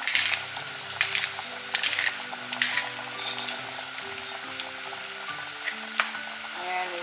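Chicken sizzling in a frying pan, with short noisy bursts about once a second through the first half and a sharp click about six seconds in. Background music with held low notes plays underneath.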